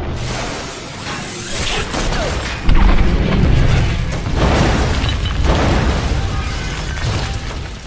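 Music with a loud, deep boom or crash hitting suddenly a little under three seconds in, then easing off.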